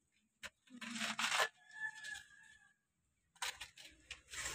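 Hands scraping and scooping loose dirt into a plastic toy dump truck: soft gritty rustling in short spells, with a sharp click near the start. Partway through, a thin high call is held for about a second.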